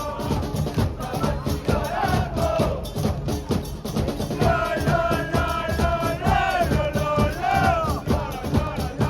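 Singing, either many voices chanting a melody or a song, over a steady pounding drum beat. The singing drops out briefly near the middle and comes back.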